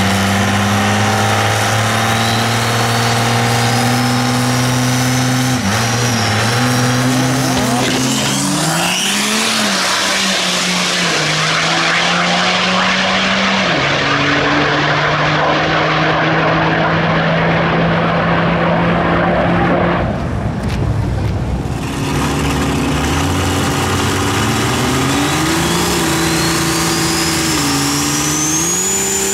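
12-valve Cummins diesel with compound turbos in a 1957 Ford F100, revved and held at steady engine speeds that step up and down during a burnout, with a turbo whine rising in the first few seconds and a loud hissing rush through the middle. After a brief break the engine revs up again, a turbo whistle climbing steeply near the end.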